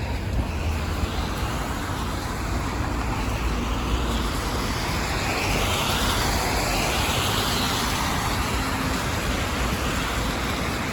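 Road traffic on a rain-wet street: steady tyre hiss on wet pavement over a low rumble of engines, swelling as a vehicle passes about halfway through.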